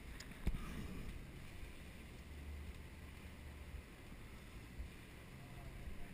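Faint, steady low rumble with a single sharp click about half a second in.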